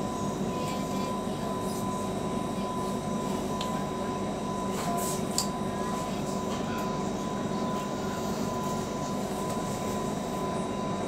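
Steady running noise heard inside a moving commuter train carriage, with a constant thin whine over it and a few faint clicks and rattles about halfway through.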